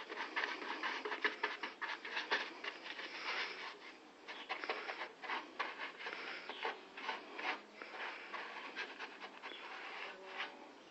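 Quick, irregular rubbing strokes against the vehicle's bodywork, several a second, with a short pause about four seconds in.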